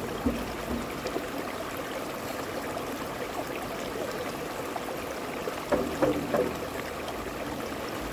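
Shallow stream rushing steadily over rocks. Hand-held frame drums are struck a few times in the first second and again in a short cluster about six seconds in.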